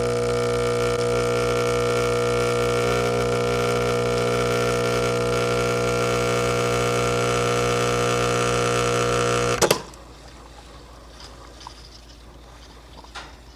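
Breville Barista Express espresso machine's vibratory pump buzzing steadily while pulling a shot, then cutting off suddenly with a click about ten seconds in; a few light clicks of handling follow.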